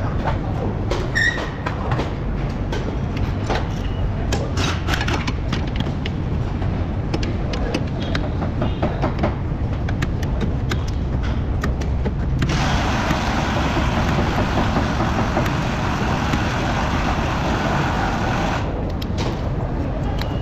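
Hand tools on a car's rear wheel hub: scattered metallic clicks and ticks as a long-handled wrench tightens the hub bolts, over a steady low workshop rumble. About twelve seconds in, a hiss starts and runs for about six seconds.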